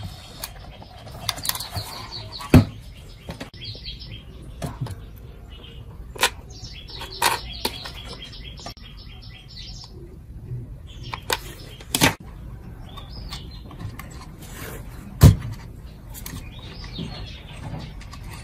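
Small birds chirping in repeated runs of short high notes, with a few sharp clicks and knocks from tools being handled on the workbench.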